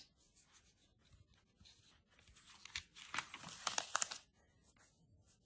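Glossy catalogue pages rustling and crackling as a page is turned by hand, loudest about three to four seconds in, after a short sharp click at the start.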